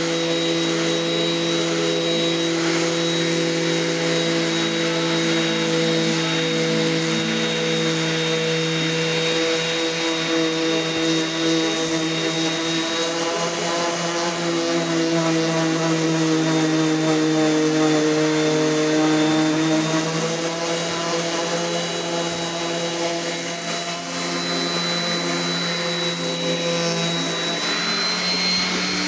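Electric sander running steadily with a motor hum as it sands the clear coat off an oak cabinet door. Its pitch dips a little midway and falls at the very end as the motor winds down.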